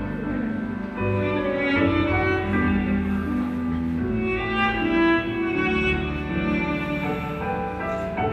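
Background music of bowed strings, violin and cello, playing slow sustained notes.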